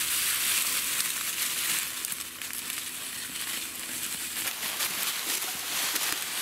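Dry leaf litter crunching and crackling underfoot as people walk through the woods, a dense run of small snaps from leaves and twigs.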